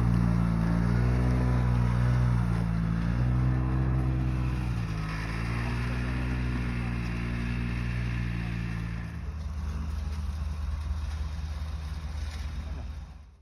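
Snowmobile engines running, their pitch rising and falling as they are revved. About nine seconds in this gives way to a deeper, steady rumble from an excavator's engine.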